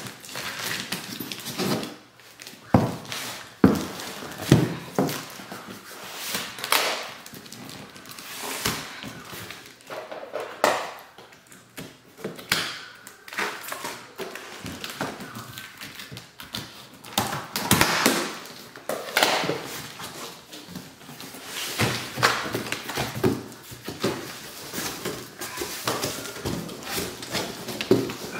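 Cardboard shipping box being opened by hand: scissors cutting the packing tape, then cardboard flaps scraped, bent and pulled open, with an irregular run of knocks and rustling scrapes.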